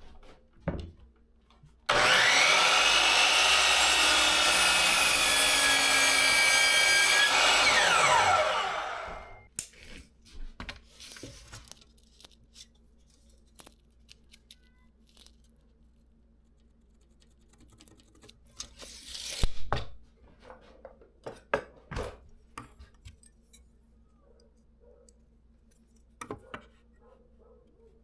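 Electric power saw crosscutting a 2x6 board to length: the saw starts suddenly and runs loud and steady with a blade whine for about five seconds, then winds down with a falling pitch. Scattered knocks of boards being handled follow.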